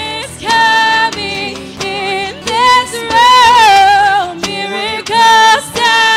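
Live worship music: a woman sings long held notes with a wavering pitch over a band with acoustic guitars and keyboard.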